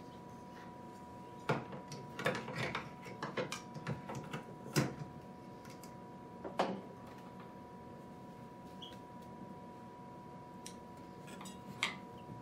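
Irregular small plastic clicks and taps as a humidity pump and circuit board assembly is handled and fitted onto an incubator's lid frame. There are several in the first five seconds, one more a little later and a couple near the end, over a faint steady hum.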